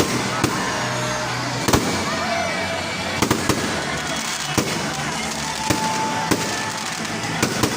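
Fireworks going off in sharp, irregularly spaced bangs, about ten of them, over the steady chatter of a crowd.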